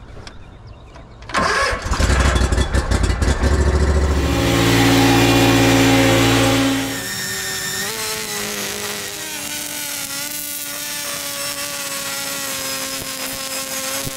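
A lawn mower's engine starts about a second in and runs loud and low. Around seven seconds in the sound changes to the higher, steady note of a handheld two-stroke edger running.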